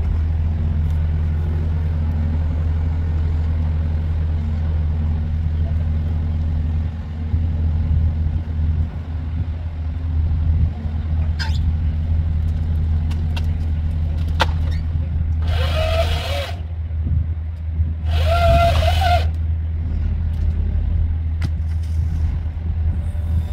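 Steady low drone of the Magni telehandler's diesel engine running while it works the Woodcracker shear boom in a tree. A few sharp clicks sound in the second half, and two louder sounds, each about a second and a half long, come a second apart near the last third.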